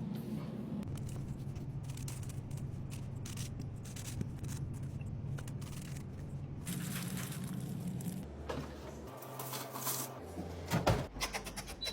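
A run of small scrapes, taps and clicks over a low steady hum, with a louder knock near the end.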